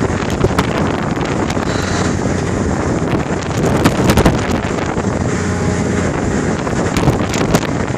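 Strong wind buffeting the microphone: a loud rushing rumble broken by sudden gusty spikes.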